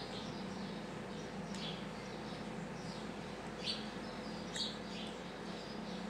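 A few short, faint bird chirps at irregular moments over a steady low background hum.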